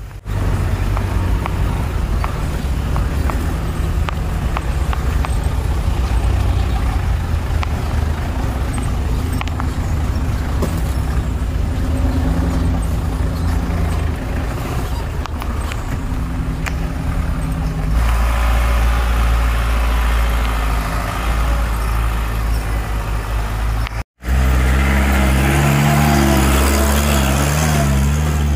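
4x4 SUV engine running while driving over rough ground, its pitch rising and falling with the throttle, with scattered knocks and rattles. The sound changes abruptly about two-thirds of the way through and drops out for a moment shortly after.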